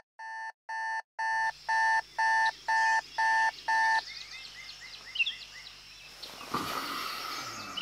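Alarm clock beeping in a quick repeated pattern, about two and a half beeps a second, growing louder, then stopping about four seconds in. Birds chirp after it, with a brief rustle of bedding near the end.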